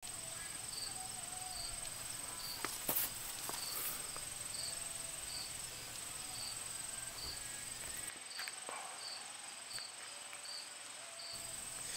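Insects calling outdoors: a steady high-pitched buzz with a soft chirp repeating about every three-quarters of a second. A couple of faint clicks about three seconds in.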